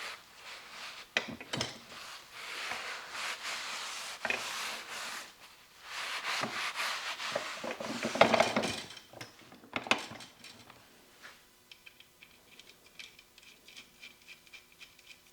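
Rubbing and wiping noises, as of a rag cleaning spilled oil off the lathe, in two long stretches broken by a few sharp knocks, the loudest about eight seconds in. Faint rapid light ticking follows near the end.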